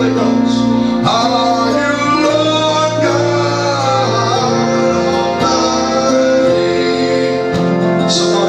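Worship music with singing over sustained instrumental accompaniment.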